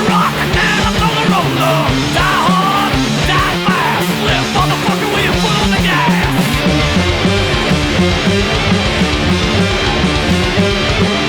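Stoner rock band recording: electric guitars, bass and drums playing a loud, steady riff, with a high lead line bending up and down over roughly the first half.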